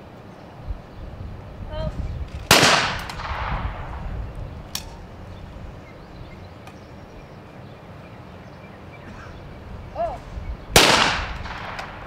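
Two single shotgun shots from trap shooters, about eight seconds apart, each followed by a long echoing tail across the range. A short shouted call, the shooter's "pull" to release the clay target, comes just before each shot.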